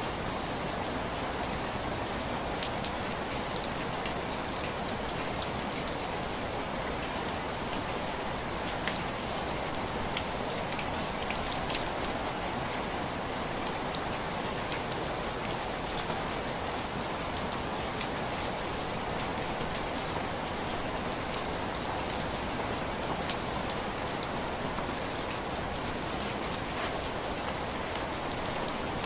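Steady rain on window glass: a constant rushing hiss with scattered sharper taps of single drops hitting the pane.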